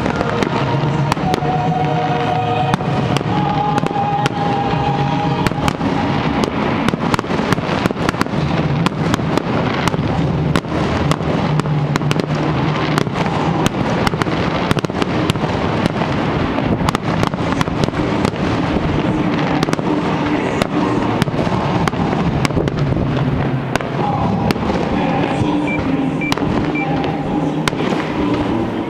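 Fireworks going off in a rapid, continuous stream of bangs and crackles, with music playing underneath.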